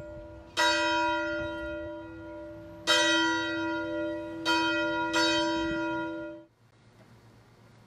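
Church bell struck four times at uneven intervals, each stroke ringing on and overlapping the next. The ringing cuts off suddenly about six and a half seconds in.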